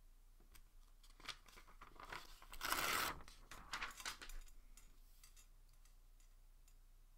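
Sheets of paper being handled and laid down: light rustles and clicks, with one louder paper swish about two and a half seconds in, fading out about five seconds in.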